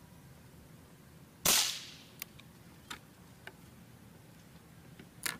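.22 LR rifle firing one shot about a second and a half in, a short flat report of a subsonic-speed round (the chronograph reads about 1030 ft/s). A few faint clicks follow, and a second, weaker sharp report comes near the end.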